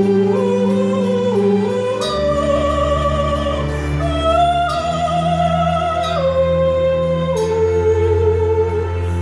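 Slow music: a melody of long, wavering held notes, sung or played, moving in steps over sustained low bass notes that change every couple of seconds.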